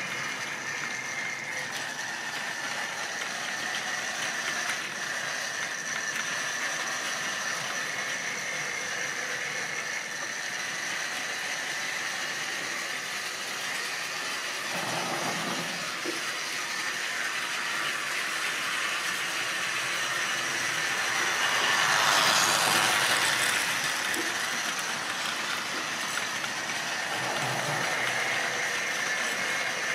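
Model railway goods train of small plastic wagons running round the track, with a steady high whine over the running noise; it swells louder about two-thirds of the way through as the train comes round close again.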